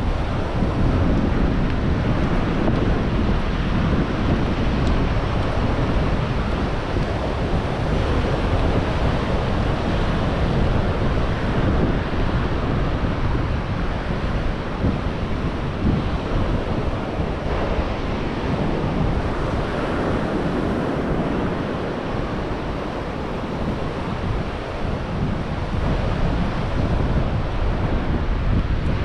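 Ocean surf washing onto the beach, with wind buffeting the microphone as a steady low rumble.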